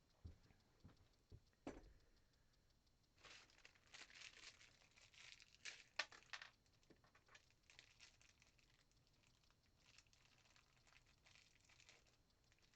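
Faint handling noises: a few light knocks, then crinkling and crackling with a sharp click about six seconds in.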